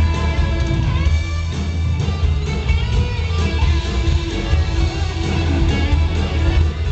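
Rock band playing, with strummed guitar over a heavy bass line.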